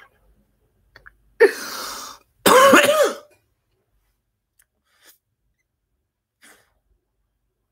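A man coughs harshly into the microphone about a second and a half in, then gives a louder cough and throat-clear with his voice sounding in it; afterwards only a few faint ticks.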